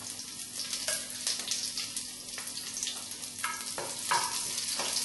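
Ginger slices and green chili frying in hot coconut oil in a wok, a steady sizzle with scattered pops and crackles, a few louder ones a little past the middle.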